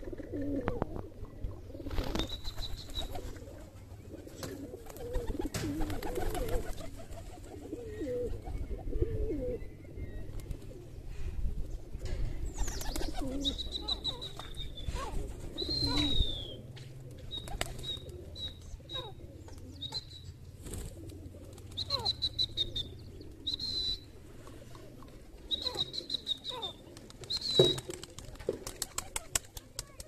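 Birds calling: low wavering notes through the first third, then short high-pitched notes in quick runs through the rest, with a fast run of clicks near the end.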